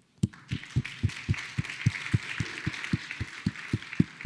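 Audience applauding, with one pair of hands clapping close to the microphone in loud, even claps about four a second.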